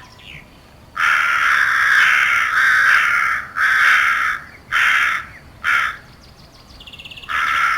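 Crow cawing. A long run of caws begins about a second in, followed by shorter single caws at intervals, the last one near the end.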